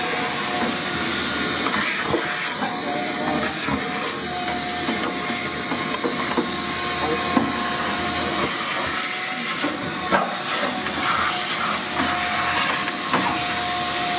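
Steady whooshing hum of commercial laundromat dryers running, with a faint tone that comes and goes and a few light clicks and knocks of hand work on a dryer's parts.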